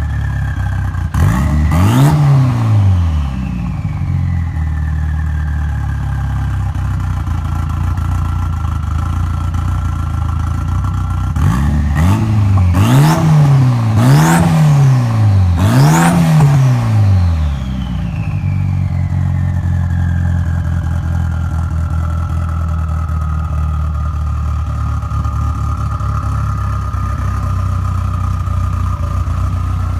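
Mitsubishi Lancer Evo VIII's built turbocharged 2.4-litre four-cylinder idling through an Aero Turbine muffler. It is revved once about two seconds in, then three times in quick succession around twelve to sixteen seconds in. After each burst a high turbo whistle slowly winds down in pitch over several seconds.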